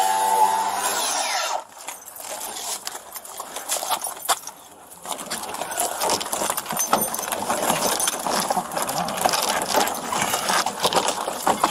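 A power tool cutting at the gate runs steadily and stops about one and a half seconds in. After a quieter few seconds, a metal pry bar is forced into a white vinyl gate: rapid knocking, cracking and scraping of plastic and metal as the gate is broken open.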